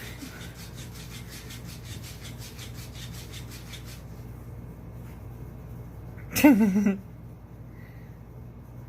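A motorized robotic fish toy flapping with a rhythmic rasp, about six strokes a second, which stops about four seconds in. About two seconds later comes a short vocal sound with a wavering pitch, the loudest sound.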